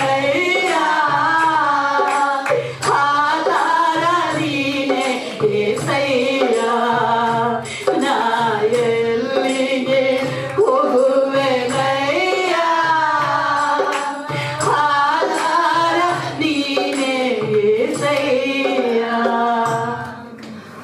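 A man singing a Kannada Christian devotional song into a microphone, holding long wavering notes over a steady low accompanying beat.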